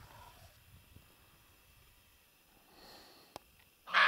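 A short, loud, breathy snort near the end, with a fainter breathy sound about three seconds in.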